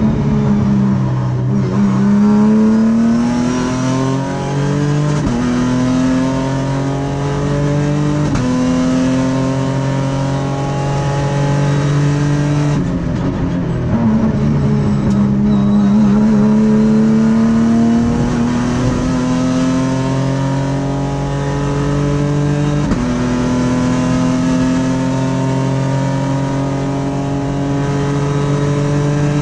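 Race car's V6 engine heard from inside the cockpit, pulling hard through the gears. Quick paddle-shift upshifts come about five and eight seconds in. The revs fall away around thirteen seconds, then climb again in a long pull with another upshift around twenty-three seconds.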